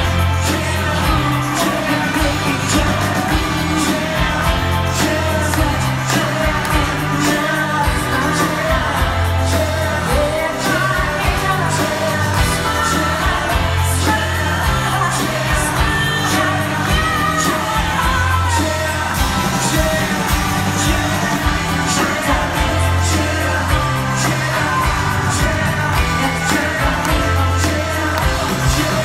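Live pop-rock band in full song: a female lead singer over electric guitar, bass, keyboards and a steady drum beat.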